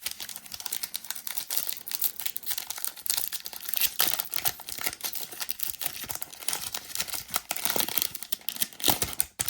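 Wrapper of a Donruss Optic football card pack crinkling and tearing as it is ripped open by hand, a dense run of crackles that starts and stops abruptly.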